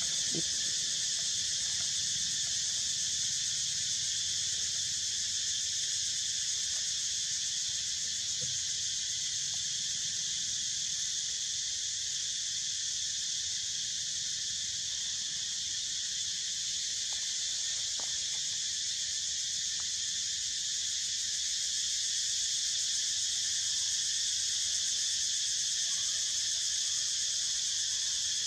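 Steady, high-pitched chorus of forest insects, droning without a break.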